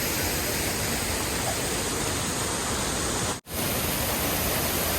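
Waterfall: a steady, even rush of falling water that drops out for a split second about three and a half seconds in.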